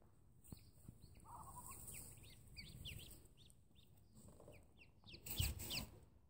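Newly hatched ducklings peeping in the nest: many short, high peeps scattered throughout. A lower warbling call comes about a second in, and a louder rustling bump a little after five seconds.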